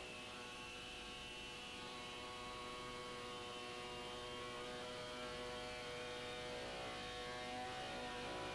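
A steady hum of several held tones, slowly getting a little louder.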